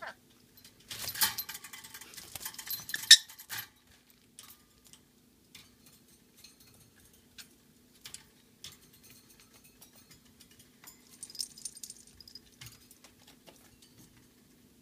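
A black-capped lory clambering about its wire cage: a few seconds of rattling and clinking of the metal cage and hanging toys about a second in, then scattered light clicks and a brief rustle later on.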